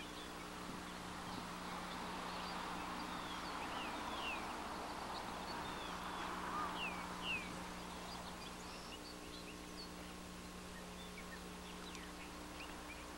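Outdoor ambience with scattered short bird chirps and quick whistled glides, over a steady low hum.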